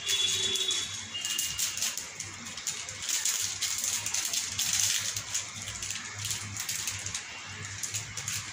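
Thick tomato-chilli pasta sauce simmering in a pan on a gas burner, a steady crackling of bubbles popping and spitting. A brief high ringing tone sounds in the first second.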